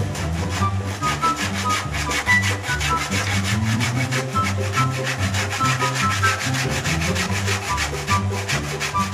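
Hand saw cutting through a wooden strip in quick, even back-and-forth strokes, about four a second. Background music with a bass line and a melody plays under it.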